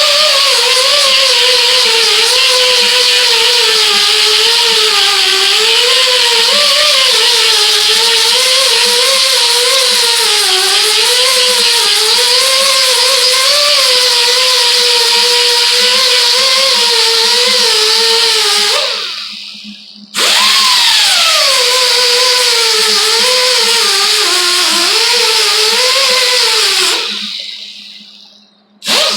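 Hand-held power grinder grinding weld beads off steel car body panel, its pitch wavering as it is pressed into the work. It is switched off about two-thirds of the way through and restarted a second later, then winds down near the end and starts up again.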